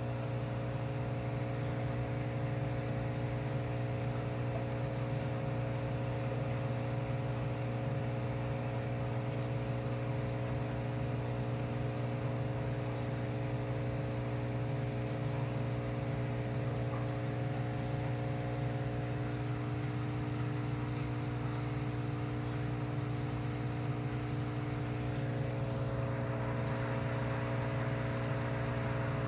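A steady low hum with several constant tones above it, without break: aquarium equipment running.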